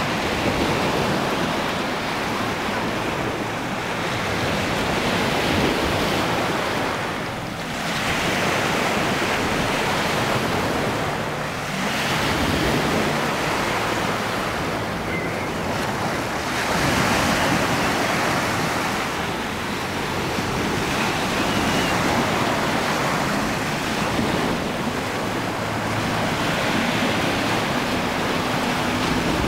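Gulf of Mexico surf washing onto the beach: a steady rush of breaking waves that swells and eases every few seconds.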